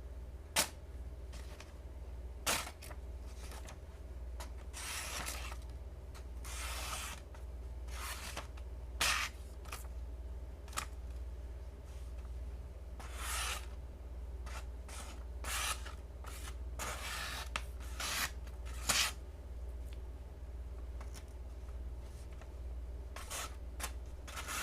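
Knife blade slicing through paper: a string of short, irregularly spaced papery slices and ticks. The edge cuts less cleanly than it should, the knife not being very sharp.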